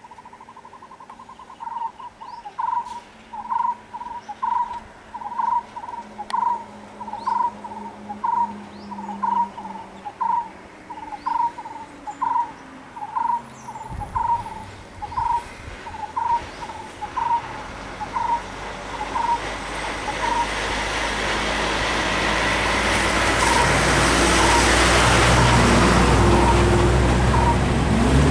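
A bird calling one short note over and over, about once a second, for some twenty seconds before it fades out. Over the last several seconds a vehicle engine comes up and grows loud.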